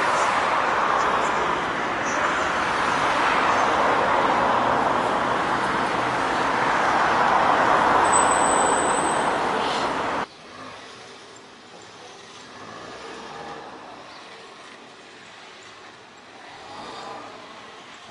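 Road traffic on a busy multi-lane street: passing cars make a steady rush that swells and fades, with a brief high squeal about eight seconds in. About ten seconds in it cuts off abruptly to much quieter street ambience.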